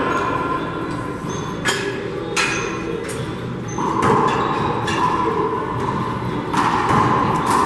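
A rally of four-wall handball: the rubber ball is slapped by hand and smacks off the walls and floor several times, each hit sharp and echoing in the enclosed court.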